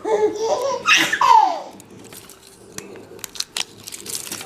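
A young child giggling and vocalising for about a second and a half, ending in a falling squeal, followed by scattered light clicks.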